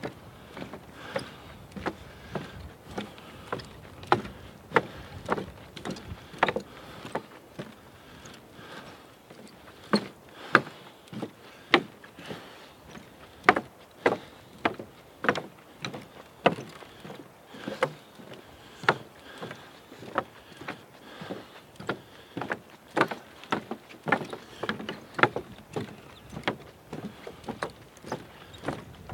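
Footsteps on a wooden boardwalk: regular knocks at a walking pace, about one every three-quarters of a second.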